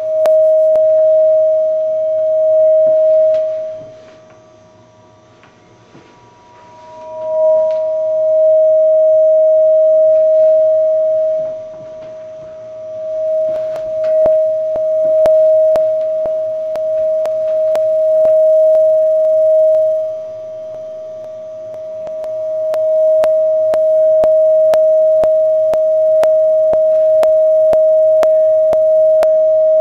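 Audio feedback howl: a steady loud single tone from a video camera's microphone picking up its own sound from the TV speaker it is wired to. It drops out about four to seven seconds in and comes back, with a fainter higher tone briefly as it returns. Scattered sharp clicks run through the second half.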